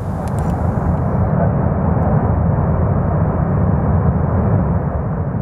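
Long iron-ore freight train passing, a steady low rumble that swells in at the start and begins to ease off near the end.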